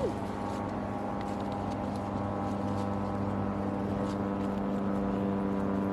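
Steady low mechanical hum of a running motor or engine, holding one pitch throughout.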